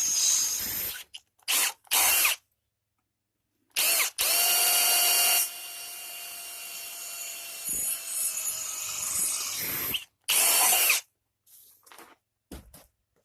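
Power drill boring holes through a thin steel band, run in several bursts: short loud runs, a longer quieter run with a steady motor whine in the middle, another loud burst, then stopping.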